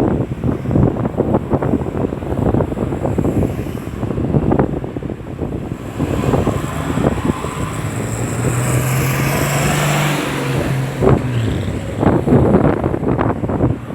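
Road traffic with wind buffeting the microphone. About halfway through, a vehicle passes close, its engine hum and tyre noise swelling and then dying away.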